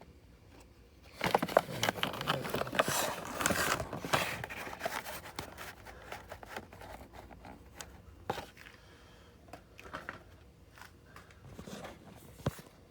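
Packaging of a model plane box being handled and opened: a burst of scraping, rustling and crinkling from about a second in, easing off into scattered clicks and taps.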